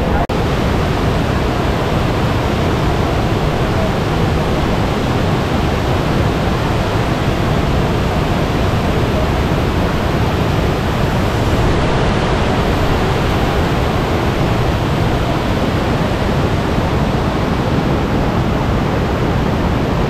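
Waterfall rushing over rocks: a loud, dense, steady roar of falling water that does not change.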